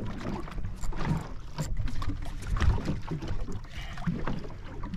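Deck and water sounds on a small fishing boat at sea: an uneven low rumble with scattered knocks and clatter.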